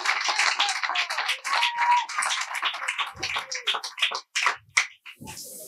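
A group of people clapping their hands, dense at first and thinning to a few scattered claps near the end.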